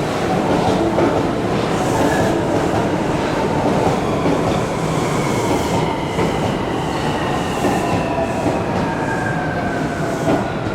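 Osaka Metro 30000A-series subway train arriving and braking at a platform. Its motor whine slowly falls in pitch as it slows, over a steady rumble of wheels on the rails.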